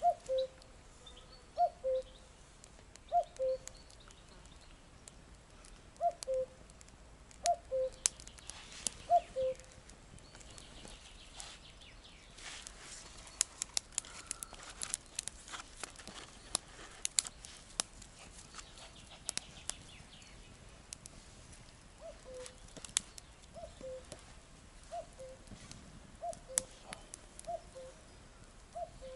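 Common cuckoo calling its two-note 'cuck-oo', a higher note falling to a lower one, repeated about every one and a half seconds. There is a run of calls at the start and another near the end. In between come faint crackles and snaps as the small fire of reed tinder and twigs catches.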